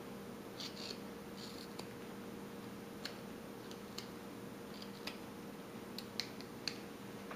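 Small carving knife cutting wood by hand: a scatter of faint, short slicing scrapes and ticks, one small cut at a time, as the head of a little wooden figure is rounded off.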